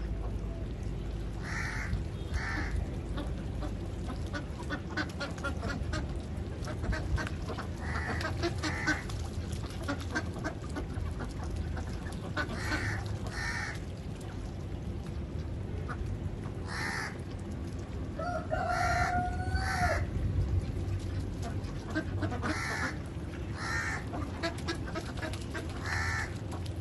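A flock of Khaki Campbell ducks quacking: short calls every few seconds, often in pairs, with a longer drawn-out call about 18 seconds in, over a low steady rumble.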